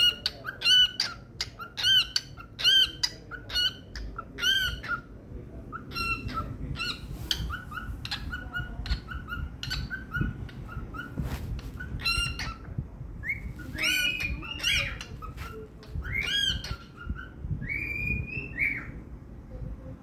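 Pet cockatiel singing: a long string of short whistled chirps, about two a second at first and more tightly bunched later, ending in one longer, slightly rising whistle near the end.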